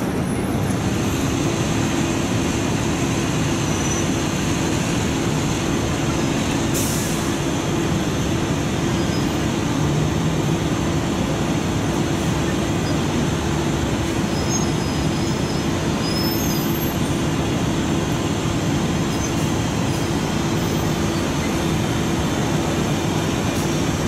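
Heavy diesel emergency vehicles running in slow street traffic: a steady rumble with a constant drone over it. A brief hiss about seven seconds in.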